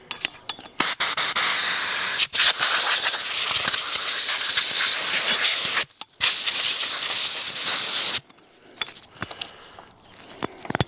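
Compressed-air blow gun blasting a long-nozzled jet over a washed, rusty cast-iron engine part to blow it clean and dry: a loud, steady hiss, broken briefly twice, that stops about three seconds before the end, followed by a few light clicks and knocks from handling the part.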